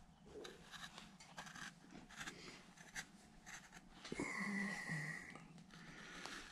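Quarter-inch V-tool being pushed by hand through wood, cutting in outline grooves: faint, short scraping strokes. About four seconds in comes a short wheezy whistle lasting about a second.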